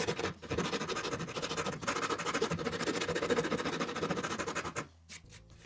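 Wood file scraping along a sawn curve in the edge of a pine board, in a rough run of strokes that stops about five seconds in.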